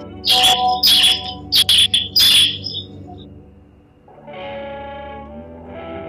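Bar-winged prinia (ciblek) giving four loud, rasping calls in quick succession in the first half. Background music with plucked, guitar-like notes runs underneath and carries on alone after the calls stop.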